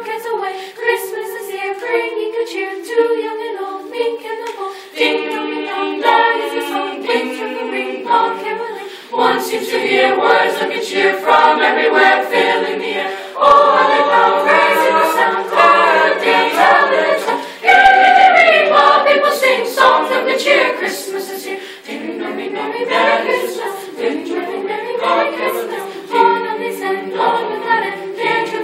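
Mixed youth choir singing in harmony a cappella, in held chords, getting louder about a third of the way in.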